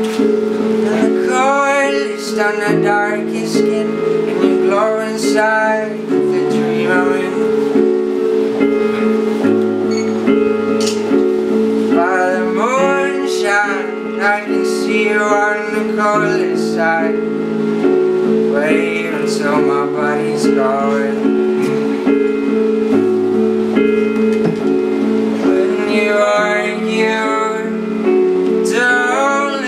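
Live band music: a male voice singing a wavering melody in phrases over sustained electric keyboard chords, with acoustic guitar.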